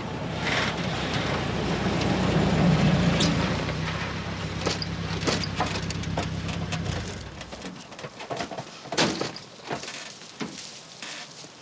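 Off-road vehicle engine running steadily as it drives through bushes, cutting out about seven seconds in. After that, a scatter of sharp knocks and rustles: doors and people getting out and pushing through shrubs.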